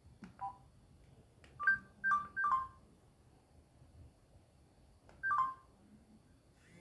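Samsung GT-C3593 phone's keypad beeping as its keys are pressed: five short two-tone beeps, one near the start, three in quick succession about two seconds in, and one more about five seconds in, some with a faint click before them.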